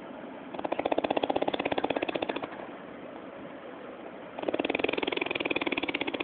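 A person snoring: two loud snores about four seconds apart, each a fast flutter lasting about two seconds.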